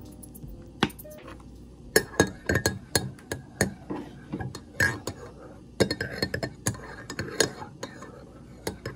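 Dishes, glass and cutlery clinking in kitchen handling: one sharp clink, then from about two seconds in an irregular run of clinks and knocks, several a second.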